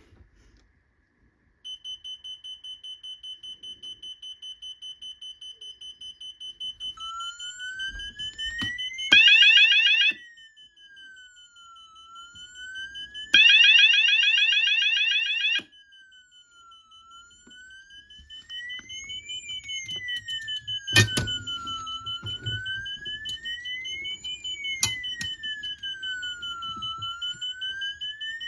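Fire alarm sounders going off together: a high beep pulsing rapidly, joined by a siren-like tone that rises and falls slowly every few seconds. Two loud bursts of fast warbling tone cut in and stop, about nine and thirteen seconds in, and there are a couple of sharp clicks later on.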